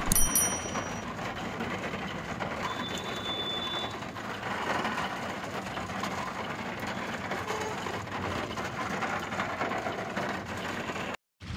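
Steady hiss of rain and tyres on a flooded road, heard from inside a slow-moving car, with a few clicks at the start and a brief high thin tone a few seconds in. It cuts off abruptly near the end.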